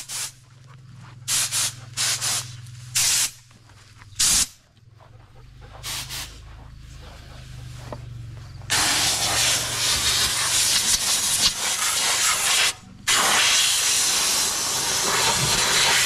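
Compressed-air blowgun blowing out a mouse nest: a series of short blasts of air, then from about nine seconds in a long continuous blast that breaks off briefly near thirteen seconds and starts again.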